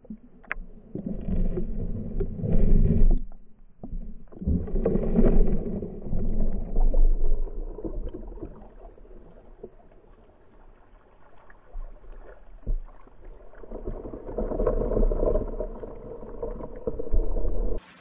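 Muffled sloshing and splashing of stream water, mixed with the camera's handling noise. It comes in uneven surges, dies down about halfway through and picks up again near the end.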